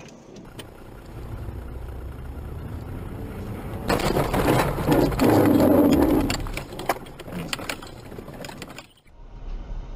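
Car cabin rumble of engine and road noise, as picked up by dashcams. A louder, busier stretch comes about four seconds in and fades after six, with a few sharp clicks, and the sound cuts off abruptly near the end before the rumble resumes.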